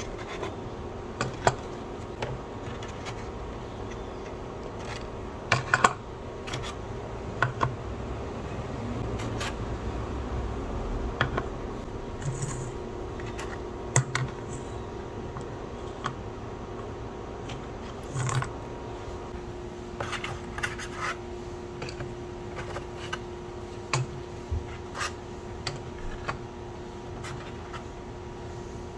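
Eggs being handled and set one by one into a plastic egg holder and lifted from a paper pulp egg tray: irregular light taps and scrapes of eggshell on plastic and cardboard, over a steady background hum.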